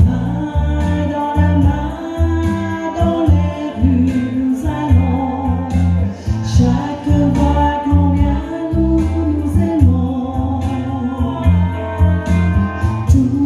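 A woman singing a melody into a microphone over amplified backing music with bass and a steady drum beat, heard through the stage sound system.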